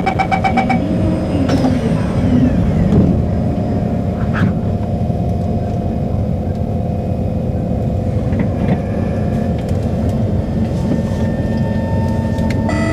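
Singapore MRT train's door-closing warning beeps, a quick series of pulses at the start. Then the train's running noise, a steady low rumble and hum inside the carriage, as it pulls out of the station. An onboard announcement chime starts at the very end.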